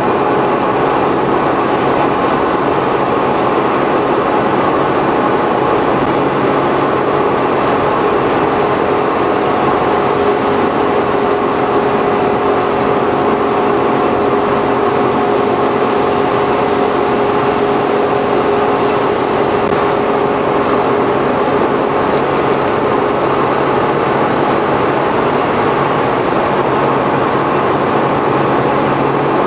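Cabin sound of a Suzuki Every kei van with Auto Gear Shift, heard from its cargo area while cruising at a steady speed: the 660 cc three-cylinder engine's drone mixed with road and wind noise. A steady humming tone sets in about a third of the way through and holds.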